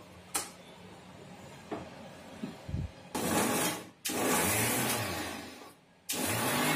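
Inalsa Compact Lx mixer grinder pulsed on and off three times to grind tomato, green chillies, garlic and coriander into chutney, run in short bursts because the jar is overfull. Each burst starts suddenly and the motor winds down as it is switched off; before the first, about three seconds in, only a few light knocks from the lid and knob being handled.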